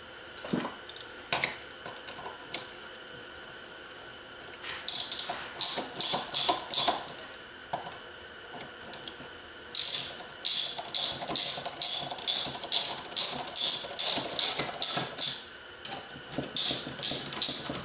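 Hand ratchet tool clicking in runs of quick strokes, about two to three a second, with short pauses, as M6 bolts are run down into a scooter engine's clutch housing. A few light clicks of parts being handled come in the first couple of seconds.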